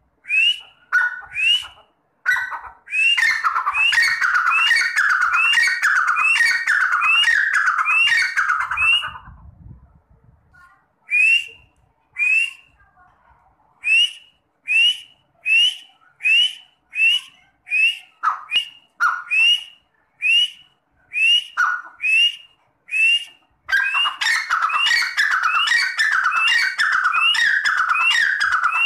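Grey francolin (teetar) calling: loud, repeated whistled notes, first in a fast run of about three a second, then after a short break slower and spaced about one and a half a second, then a fast run again near the end.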